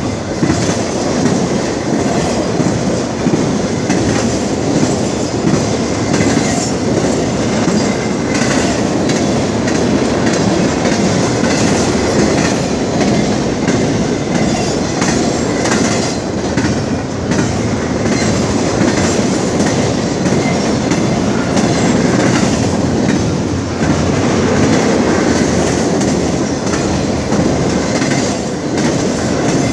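Intermodal freight train cars rolling past: a loud, steady rumble of steel wheels on the rails with irregular clicking as wheels cross rail joints.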